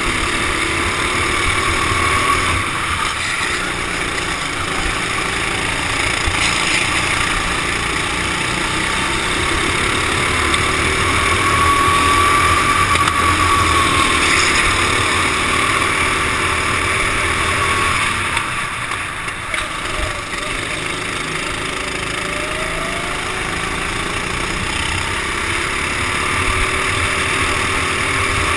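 Racing kart engine running hard, heard from the driver's helmet, its pitch rising and falling as the kart speeds up and slows for corners, with a brief drop about two-thirds of the way through. Other karts on the track are running close by.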